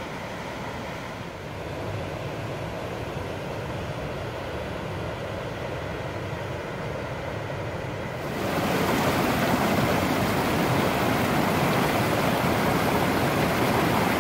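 Steady rush of a river pouring over a dam spillway and rapids. About eight seconds in it turns suddenly louder and hissier: water cascading close by down a stepped fish ladder.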